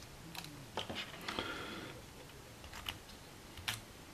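Faint scattered clicks and a brief soft scrape from hands handling a euro cylinder lock and a 3D-printed plastic key.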